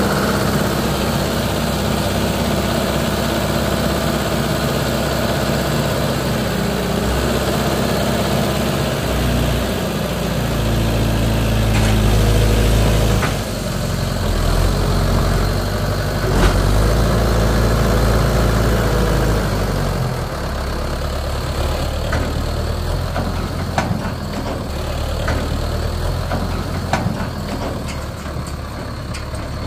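Mahindra Yuvo Tech 575 DI tractor's diesel engine running while its hydraulics raise a loaded tipping trailer to dump mud. The engine note swells and eases a couple of times, then settles quieter about two-thirds of the way through, with a few light clicks near the end.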